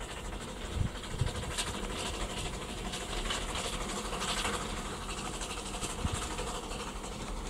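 English-built steam motor coach running along the line, with steam hiss that swells for a second or so midway and a few low knocks.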